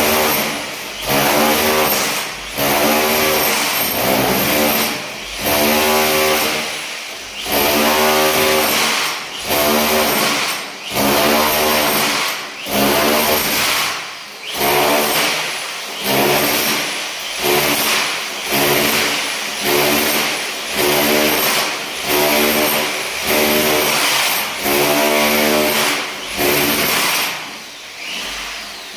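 A motor-driven machine running in repeated bursts, roughly one every two seconds, each burst a pitched motor sound that wavers slightly before dropping back.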